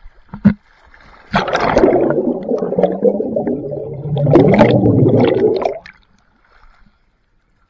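Pool water splashing and gurgling right at the microphone for about four seconds, after a brief knock near the start.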